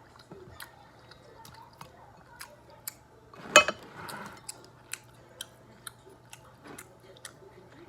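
Close-up eating sounds of a seafood boil: chewing and mouth noises with many sharp clicks and cracks from crab-leg shells, and one louder crack-like sound about three and a half seconds in.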